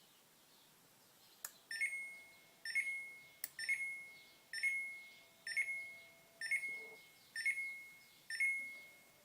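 A click as the Samsung refrigerator is powered on, then its electronic beeper sounding a short high beep about once a second, with a second click a couple of seconds in.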